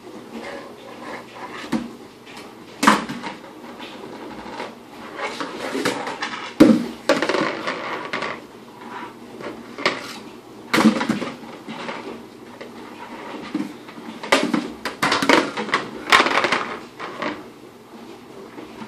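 Dishes, pots and utensils clattering in a kitchen: irregular knocks and clinks, with louder clanks at a few points through the stretch.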